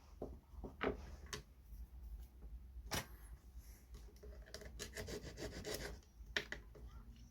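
Small hand tools working at the tip of a cello bow: low scraping and rubbing on wood, with a few sharp light clicks and taps scattered through.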